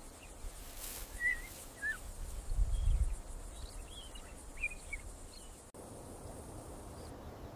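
Open-air ambience: a few short, scattered bird chirps over a low steady background, with a low rumble swelling briefly a little before the middle.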